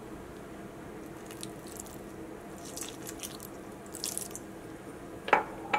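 A thin stream of water poured onto flour-coated chicken pieces in a stainless-steel bowl, faint splashing and dribbling in short spells, brightest about three and four seconds in. The water wets the dry cornflour and chilli coating so it will mix into the chicken.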